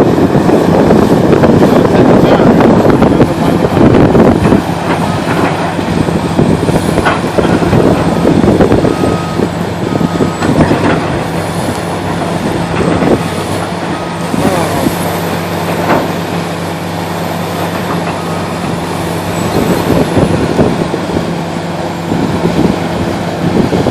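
Excavator's diesel engine working under load as a tree is taken down, with a dense loud crashing for the first four seconds or so and scattered sharp cracks after. An intermittent beep sounds for a while in the middle.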